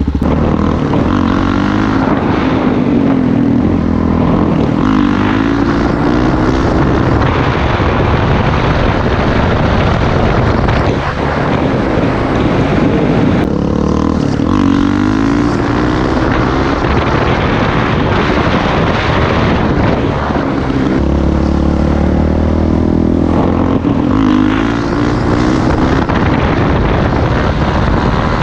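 Suzuki DR-Z400SM supermoto's single-cylinder four-stroke engine under way, revving up and dropping back as it shifts through the gears several times.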